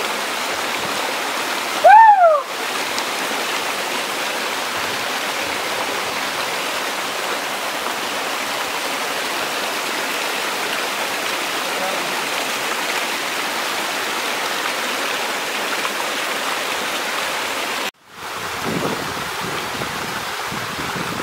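Mountain stream rushing and splashing over rocks, a steady water noise. About two seconds in, a brief loud call that rises then falls in pitch rings out over it. Near the end the water sound cuts off suddenly and a quieter background takes over.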